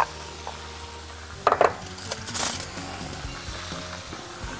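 A spoon clinking and scraping against a glass mixing bowl as its contents are scraped out into a blender: a couple of short ringing clinks about a second and a half in, then a brief scrape.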